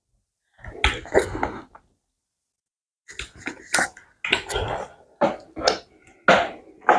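Close-up wet eating sounds of fufu swallowed with slimy ogbono soup: quick lip smacks and slurps in short clusters. There is a group of them about a second in, a pause, then a fast run from about three seconds.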